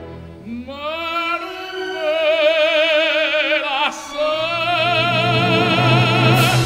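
Operatic voice singing a Neapolitan song, holding long notes with wide vibrato over orchestral accompaniment. The line breaks off briefly about four seconds in, then goes on with a new held note.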